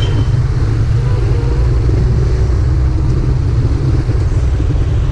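Motorcycle engine running at low speed, a steady low rumble.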